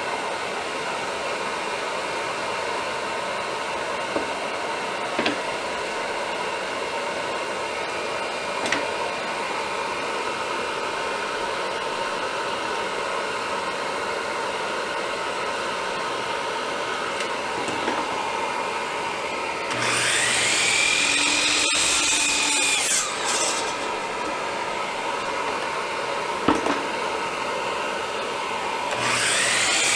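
Hercules 12-inch 15-amp sliding compound miter saw spinning up with a rising whine about two-thirds of the way through, cutting for a couple of seconds and winding down, then starting up again near the end. A steady shop machine hum with a few light knocks runs underneath.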